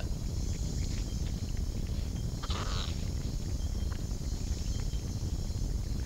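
A woolly opossum moving among leaves and a flower: faint small clicks and one brief rustle about two and a half seconds in, over a steady low rumble.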